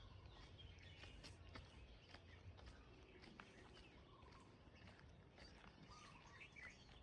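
Faint outdoor ambience: a low steady rumble with scattered small bird chirps and a few light clicks.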